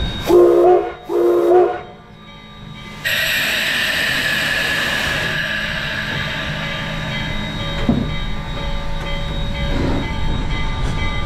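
Steam whistle of Denver & Rio Grande Western 491, a steam locomotive, sounding two short blasts: the signal that the brakes are released and the train is about to proceed. About three seconds in, a loud, steady hiss of steam starts as the locomotive begins to move its train.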